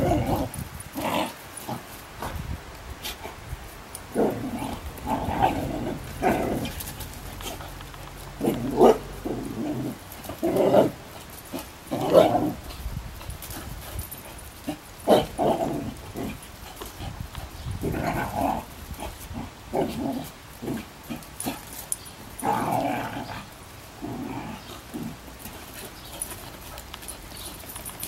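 Two dogs play-fighting, making many short, irregular growls and barks as they wrestle and chase.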